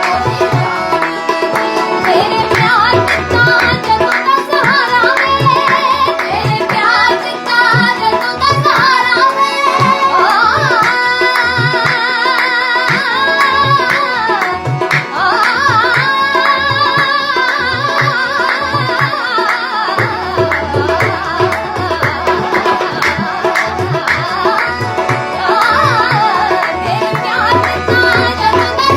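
Indian song performed live: a woman singing a gliding melody with tabla drumming underneath.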